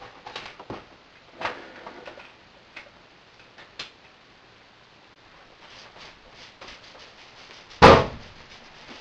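Scattered small clicks and knocks of objects being handled, with one much louder knock about eight seconds in; no hair clipper running.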